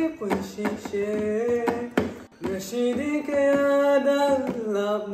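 Singing: a voice holding notes and sliding between them, with a sharp click about two seconds in.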